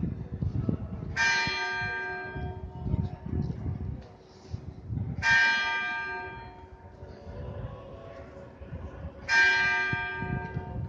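Church bell struck three times, about four seconds apart, each stroke ringing on and fading away before the next, with wind rumbling on the microphone.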